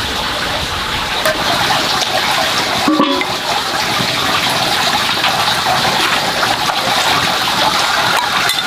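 Steady bubbling hiss of broth simmering in a wok with fish and bamboo shoots.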